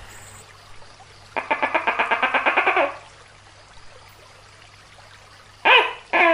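Tokay gecko calling: a rapid rattling run of clucks, about a dozen a second for a second and a half, then after a pause two loud pitched notes near the end, the start of its two-part "to-kay" call.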